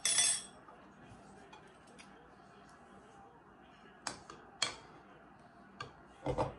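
Metal spoon clinking against a ceramic soup bowl of pho as it is stirred: two sharp clinks about four seconds in, another a little later, and a quick run of taps near the end. A short, loud slurp at the very start.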